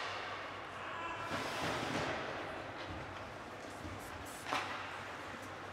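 Ice hockey rink sounds: a scraping hiss, typical of skates cutting the ice, about a second and a half in, and one sharp crack about four and a half seconds in, typical of a puck or stick strike.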